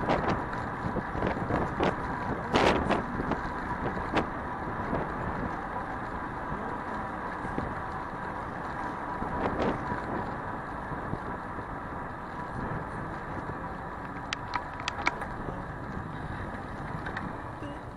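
Steady city traffic and road noise as heard from a moving bicycle, with cars going by. A few sharp clicks or knocks break through, one near the start and a small cluster about fifteen seconds in.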